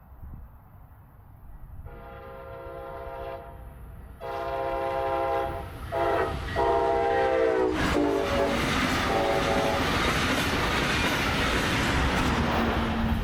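Brightline passenger train sounding its horn in the grade-crossing pattern, long, long, short, long, as it approaches. It then passes close by at speed with a loud, steady rushing of wheels on rail.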